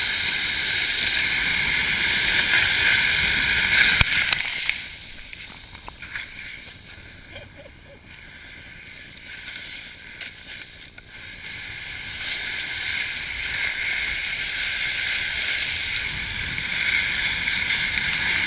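A volcano board sliding fast over loose volcanic gravel, a steady gritty hiss. It drops away sharply about four seconds in, after a single click, and builds back up from about twelve seconds.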